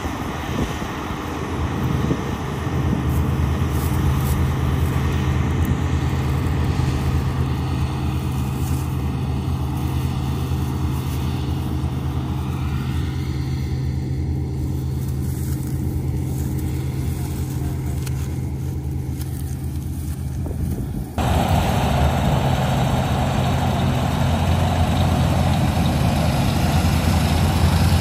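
Combine harvester running steadily as it cuts wheat, a low engine hum. About three quarters of the way through the sound changes abruptly and becomes louder and brighter.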